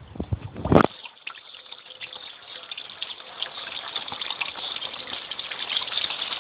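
Water falling and splashing in a steady rush that grows gradually louder. In the first second there are low thumps on the microphone and a sharp knock just before the rush takes over.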